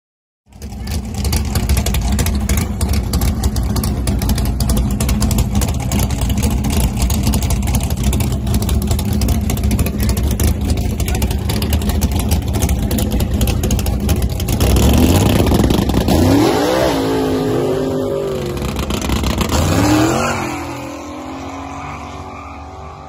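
Chevrolet S10 drag truck's engine running loudly with a low rumble at the starting line, then launching about fifteen seconds in: the revs climb, drop at a gear change and climb again, and the sound fades as the truck runs off down the strip.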